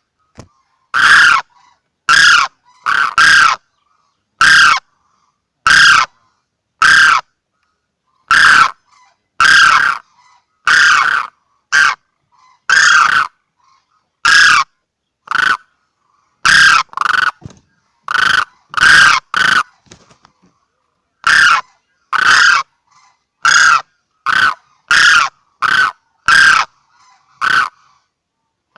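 Crane calls played as a hunting lure recording: short, loud honking calls repeated about once a second at uneven intervals, with dead silence between them and a brief pause near the middle.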